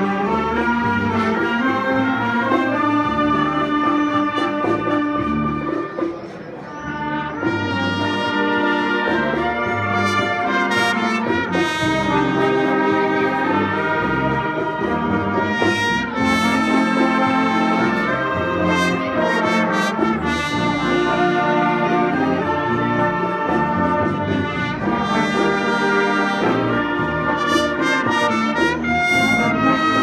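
Wind band playing, brass to the fore: trumpets and trombones over saxophones and clarinets, with a short softer moment about six seconds in.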